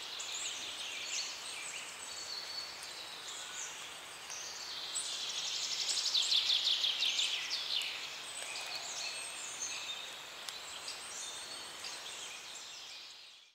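Several songbirds calling and chirping over a soft outdoor hush, with a fast trill that is loudest about six to eight seconds in. The sound fades out at the very end.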